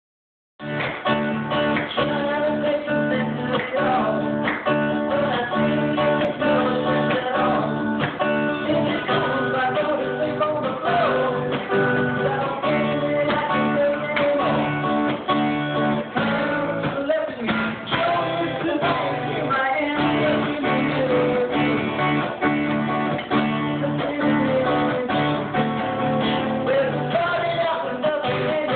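A man singing to a strummed acoustic guitar, starting about half a second in. The recording is dull, with no high end.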